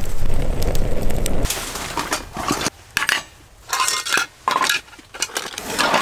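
Dishes and cutlery clattering and clinking in short bursts, after a low rumble in the first second and a half.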